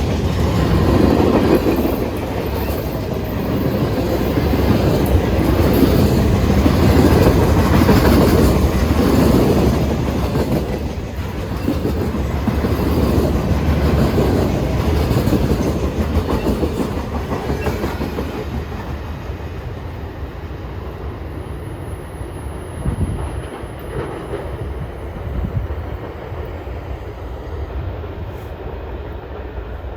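CSX freight train's cars rolling past, the wheels clacking over the rail joints, loud at first and slowly fading over the second half.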